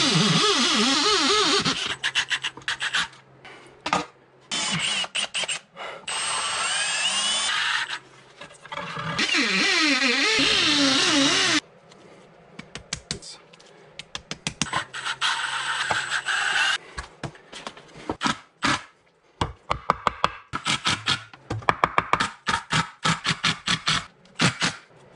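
Cordless drill boring into a painted concrete-block wall with a masonry bit: several long runs of drilling, its pitch rising and falling, then a run of many short quick bursts near the end.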